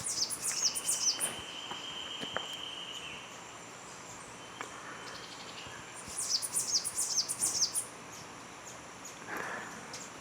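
Rainforest birds singing, with two bouts of quick, high, falling whistled notes, the first at the very start and the second about six seconds in. A steady high insect buzz runs under the first three seconds, and a short noisy rustle comes about nine and a half seconds in.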